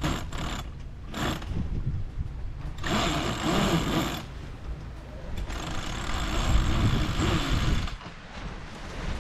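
Spinnaker being hoisted on a sailboat: halyard and rigging running through blocks in three bursts, over a steady low rumble of wind on the microphone.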